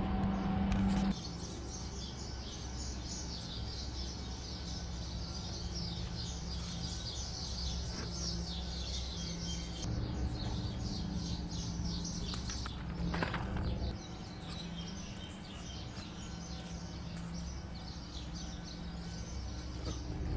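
Many small birds chirping over a steady low hum; a louder low hum cuts off about a second in.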